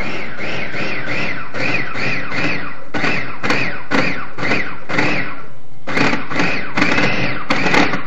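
Small electric food chopper pulsed in quick short bursts, its motor whirring up and falling away two to three times a second as the blade chops raw tuna, with a brief pause about five and a half seconds in.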